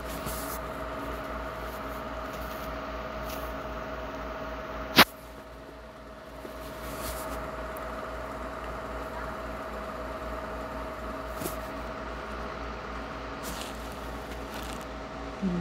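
Steady background hum with one sharp click about five seconds in.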